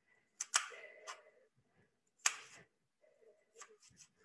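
Chef's knife chopping an onion on a cutting board: a few sharp, irregular knocks of the blade striking the board, two close together about half a second in, one a little after two seconds, and a few lighter ones near the end.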